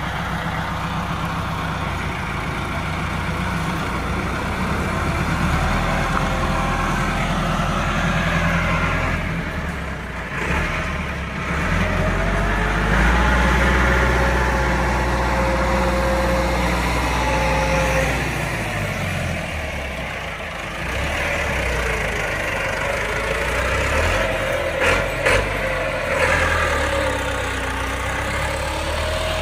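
Massey Ferguson 385 tractor's four-cylinder diesel engine working hard while it reverses a heavily loaded brick trolley. It revs up about halfway through, holds, then drops back, and there are two short knocks near the end.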